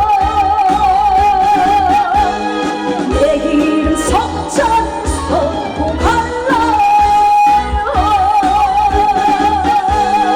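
Trot song played live over a PA, its melody twice holding a long wavering note with vibrato over a steady beat.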